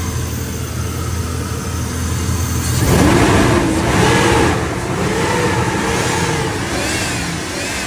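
A 1999 Chevrolet Silverado's 5.3-litre LS V8 idles evenly, running without misfires after new plug wires, spark plugs and cleaned injectors. About three seconds in it is revved, with the pitch rising and falling over several swells before settling back.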